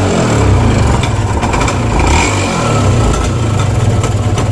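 Yamaha TZM's two-stroke single-cylinder engine running just after starting, held on a little throttle, its speed wavering slightly. It is running on a carburetor with a stripped pilot jet, and it needs gas to keep going.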